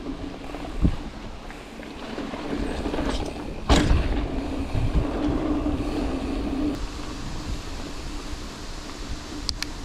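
Mountain bike rolling fast over dirt singletrack: tyre rumble and rattle with wind buffeting the microphone. There is a sharp knock about a second in and a louder jolt near four seconds in, as the bike hits bumps. A steady hum runs for a few seconds in the middle.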